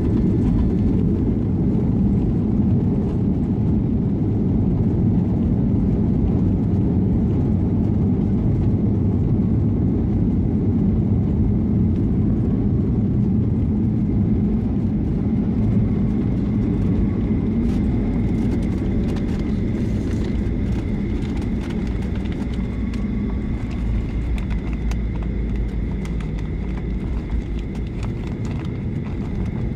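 Cabin noise inside a jet airliner rolling on the runway: a steady low rumble from the engines and wheels that eases slightly toward the end, with a faint steady whine joining in about two-thirds of the way through.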